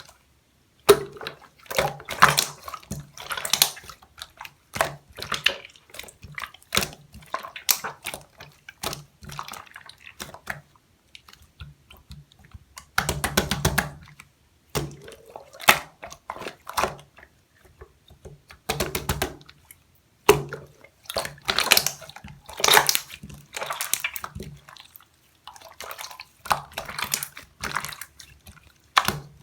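Marbled slime being squished and pressed by hand, giving wet clicks and small pops in irregular bursts a second or so apart.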